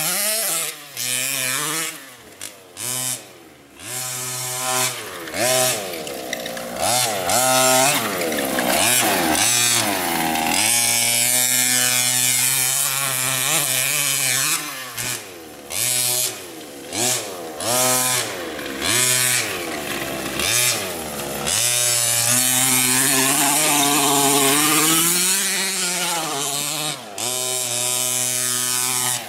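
Small two-stroke engine of a 1/5-scale MCD radio-controlled off-road buggy, revved up and down over and over as it drives over rough dirt. Its pitch rises and falls with the throttle, with short dips whenever the throttle is let off.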